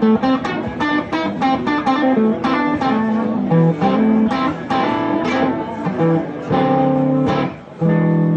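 Electric guitar played alone: a quick run of picked single-note lead lines, then a held note and a ringing chord near the end.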